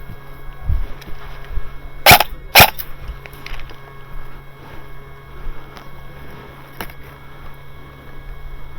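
Two sharp airsoft shots about half a second apart, a couple of seconds in, with a fainter click later, over low rustling and thumps of movement.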